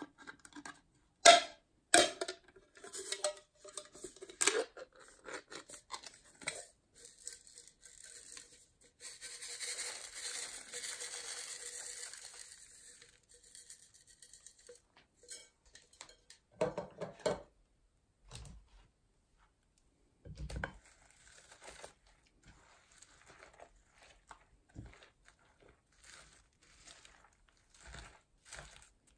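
A metal pull-ring can lid is worked and peeled open with sharp clicks and crackles, the loudest a little over a second in. A steady hiss of the can's contents pouring into a glass dish follows, then scattered crunches and squishes as slime full of foam beads is mixed by hand.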